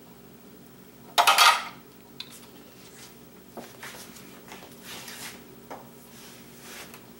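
A metal spoon clattering sharply against a hard surface about a second in, followed by a few light clinks and taps.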